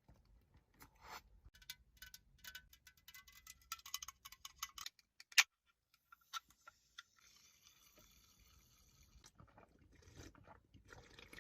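A quick run of small ringing clinks, like utensils tapping tableware, with one sharp clink about five seconds in. A softer rustling stretch follows.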